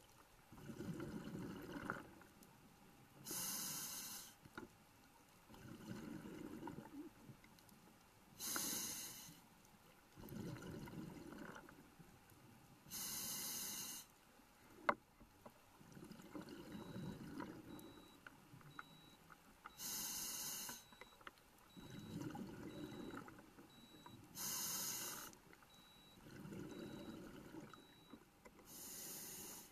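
A scuba diver breathing through a regulator, heard underwater through a camera housing. A hissing inhalation comes every four to five seconds, six in all, and each is followed by a rumble of exhaled bubbles. A single sharp click comes about halfway through.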